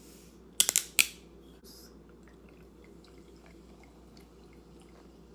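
A few sharp clicks of small hard objects knocking together about half a second to a second in, then only faint, light handling ticks.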